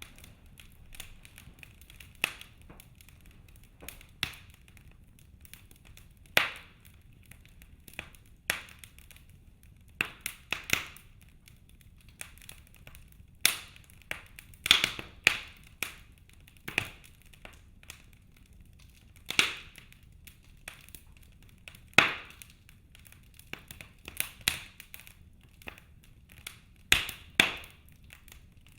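Wood fire in a fireplace crackling, with sharp pops at irregular intervals, roughly one every second or two, over a faint steady low rumble of the flames.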